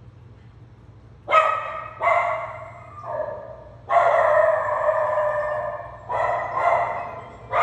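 Small schnauzer-type dog barking, starting about a second in: a few separate barks, then a longer run of barks, then more single barks. This is alarm barking at a doorbell sound effect, as if a visitor were at the door.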